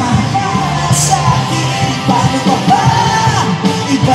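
Live rock band playing through a stage loudspeaker system: a woman sings lead over electric guitars.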